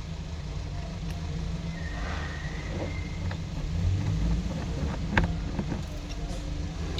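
Steady low rumble in the background with a few small clicks and taps of small parts being handled, the sharpest about five seconds in.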